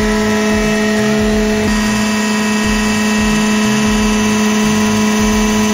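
PTO-driven hydraulic pump and winch drive on an electric truck running steadily: a loud, even whine at one pitch that shifts slightly about a second and a half in.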